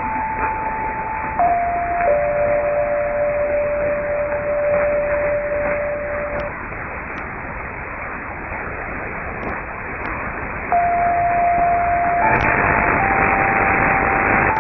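DR's longwave interval signal on 243 kHz, the opening signal the station plays before programmes begin, heard through AM reception from about 1000 km away: a slow tune of single held tones, one note lasting about four seconds. Steady static hiss runs under it and grows louder about twelve seconds in.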